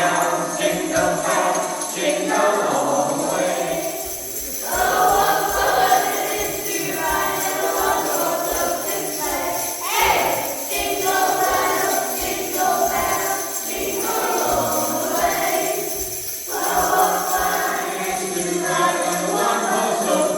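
Christmas music with jingle bells shaking steadily throughout.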